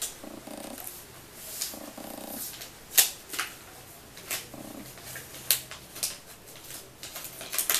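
Gift-wrapping paper rustling and crinkling as it is peeled and torn off a small package by hand, in a series of short, sharp crackles.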